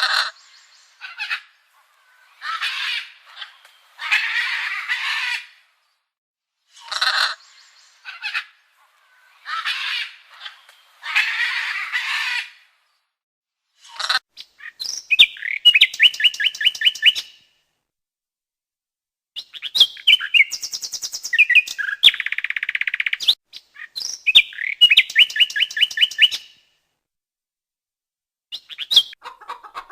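Bird calls: a series of harsh, rough calls each half a second to a second and a half long, then from about halfway through quick, fast-repeating pitched trills in several bursts.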